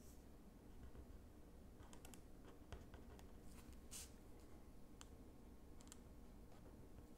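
Faint scratches and light taps of a fine-tip ink pen drawing short strokes on paper, coming in small clusters, the strongest about four seconds in, over a low steady room hum.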